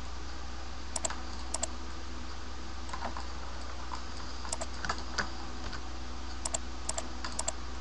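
Computer keyboard keys pressed in scattered single taps and quick pairs, about a dozen in all, as Blender shortcut keys are used. A steady low electrical hum runs underneath.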